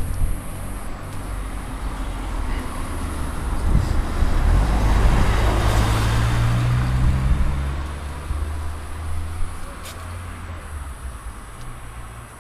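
A motor vehicle driving past: engine hum and tyre noise grow louder, peak around five to seven seconds in, then fade away.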